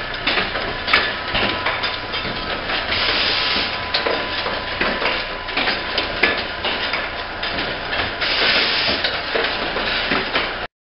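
Automatic syringe assembly machinery running: dense, rapid mechanical clicking and clatter with two bursts of compressed-air hiss, over a faint steady tone. The sound cuts off abruptly near the end.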